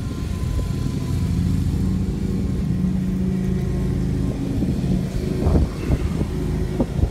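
Steady low engine drone, with a few knocks and rustles about five to seven seconds in from hands handling the fish and the camera.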